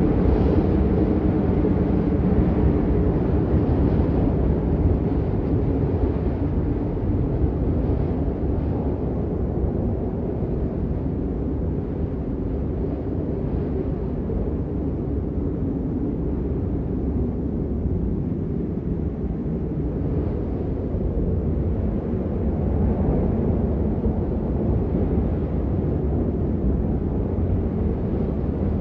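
Howling blizzard wind, a steady deep rush that swells and eases slightly, with wind buffeting the microphone.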